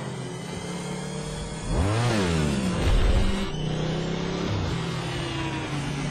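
Sci-fi light cycle engine sound effects: a steady electronic engine hum, with a cycle sweeping past about two seconds in, its pitch rising then falling.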